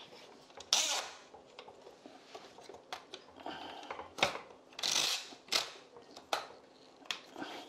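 Metal legs of a camping roll-table frame being pulled out and extended: an irregular string of sharp clicks and knocks from the tubes, with a few brief scraping swishes.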